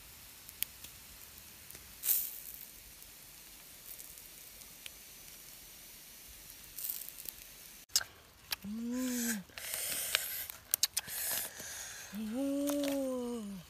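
Duck roasting on a wooden spit over hot embers: a faint steady sizzle and hiss with a few scattered crackles. A little past halfway it changes to louder rustling and crackly tearing as hands pull the roasted duck apart, with two short hummed voice sounds whose pitch rises then falls.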